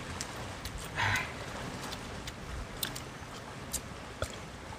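Small scattered clicks from people eating grilled fish by hand, over a steady low background rush, with a short breathy snort-like sound about a second in.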